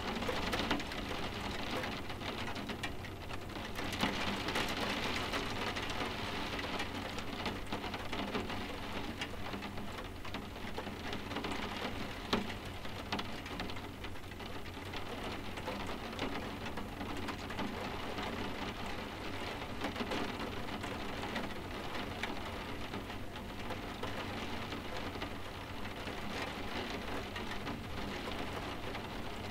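Steady soft rain tapping on windows, with scattered sharper drops standing out now and then; the most distinct tap comes about twelve seconds in.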